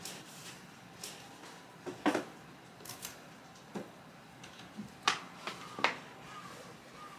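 Books, a magazine and small items being taken off a wall shelf and stacked in the hands: a string of light knocks and taps, the loudest about two seconds in and two more a little after five seconds.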